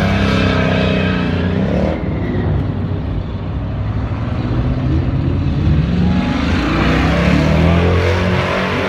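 Car engines revving and running loudly, their pitch rising and falling. A broad hissing noise swells in over the second half.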